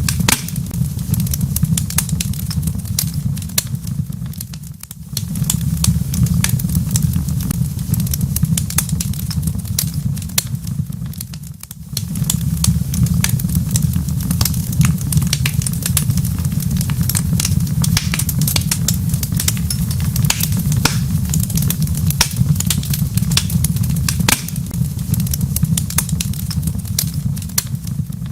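Wood fire crackling in a fireplace: dense, irregular sharp pops and snaps over a steady low rumble. The sound dips briefly twice, about five and twelve seconds in.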